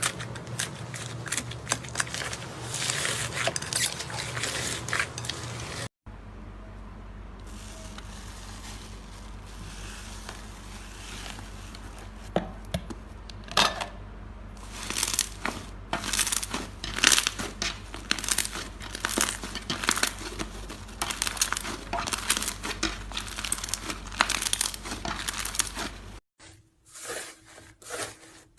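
Slime being squeezed, stretched and poked, making many small crackles and pops. The sound changes abruptly about six seconds in and again near the end.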